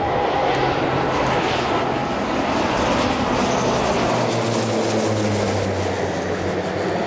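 Fuji T-7 turboprop trainers flying over in formation, their propellers giving a steady droning note. About four seconds in, the pitch drops as one aircraft passes overhead.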